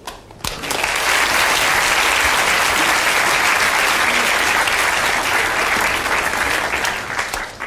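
A large audience clapping, starting about half a second in, holding steady, and dying away near the end: applause thanking a volunteer after a demonstration.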